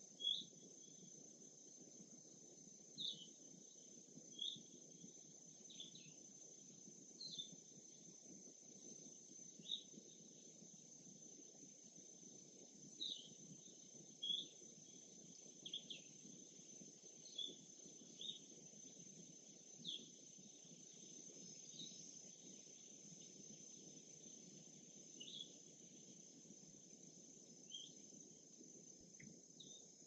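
Faint lakeside ambience: a steady high insect trill with short bird chirps every second or two, over a low, even background hiss.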